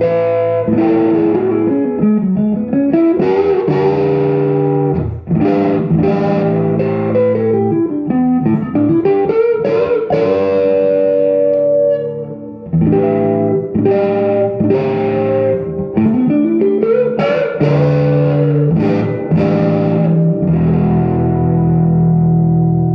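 Silvertone 1413 electric guitar with a Kay pancake pickup, played through a home-built tube amplifier and 1957 Jensen P12Q speaker, with reverb and a little natural crunch. Strummed chords with several notes sliding down and back up the neck, ending on a held chord that rings out.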